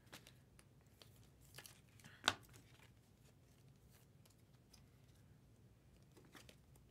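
Foil trading-card pack wrapper being handled and torn open, crinkling quietly, with one sharp crackle about two seconds in.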